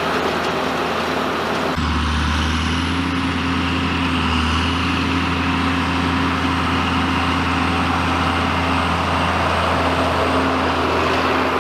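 Farm tractor engine running steadily, with a sudden change in its sound about two seconds in.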